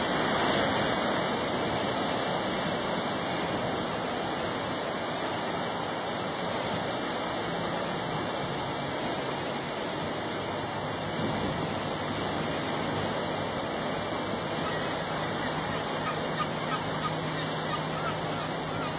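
Ocean surf washing steadily against a rocky shore, with no single wave crash standing out.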